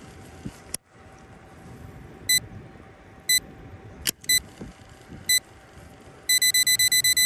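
Electronic beeper sounding short, high beeps: single beeps about once a second, then a fast run of beeps starting about six seconds in.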